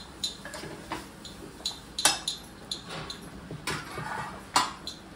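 Irregular light clinks and taps of hands working at a kitchen counter as a colocasia-leaf roll is shaped for tying, with a few sharper clicks about two seconds in and again toward the end.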